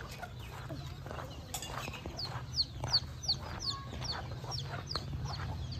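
Free-ranging village chickens calling: a run of short, high chirps that fall in pitch, several a second, mostly in the middle, over a steady low hum.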